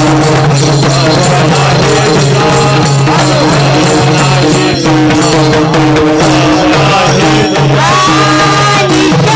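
Devotional kirtan music between sung lines: steady held drone notes with jingling rattle-like percussion keeping the beat. A voice comes in near the end.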